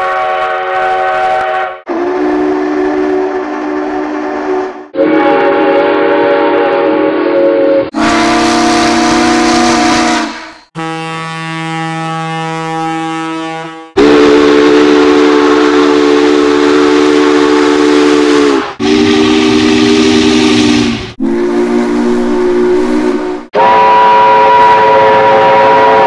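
A run of steam locomotive whistles, about nine different recordings cut hard one after another, each blown steadily for two to five seconds. Most sound several notes together as a chord; one near the middle is quieter and reedier.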